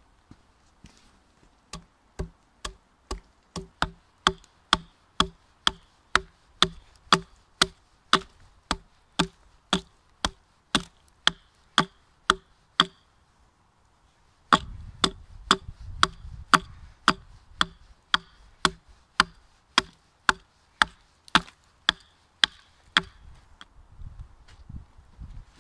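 Hatchet chopping into the end of a pine log, sharp blows about two a second. The blows pause briefly midway, then carry on in a second steady run.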